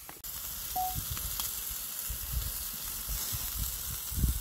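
Lamb rump steaks sizzling on the grate of a charcoal kettle grill over hot coals: a steady hiss with faint crackles, and an irregular low rumble from about two seconds in.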